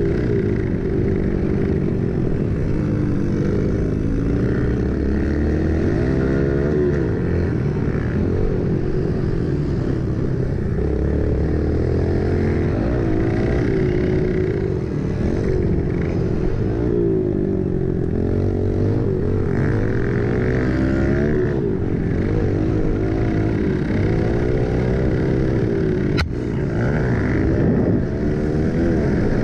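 Pit bike engine revving up and down as it is ridden hard around a dirt motocross track, pitch rising and falling with each burst of throttle and shift. A single sharp knock near the end.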